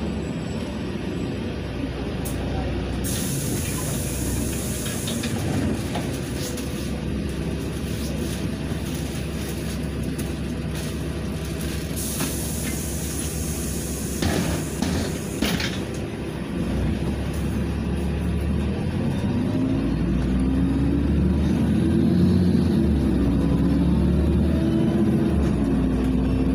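Inside a LiAZ 5292.67 city bus in slow traffic: air hisses twice from the pneumatics, the second time for several seconds with a few clicks. Then the bus pulls away, its engine and transmission whine rising in pitch and stepping between gears as it accelerates.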